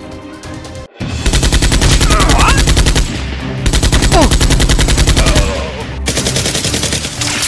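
Rapid automatic gunfire, a machine gun firing in long, fast bursts, starting about a second in and briefly easing near the middle. It is a dubbed sound effect standing in for the toy blasters.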